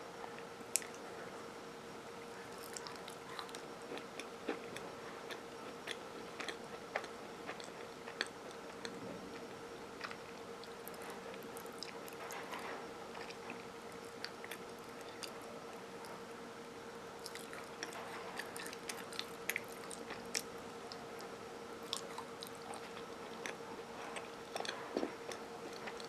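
Close-up chewing and biting of crunchy Chips Ahoy! s'mores cookies, with many small crunches and clicks scattered through.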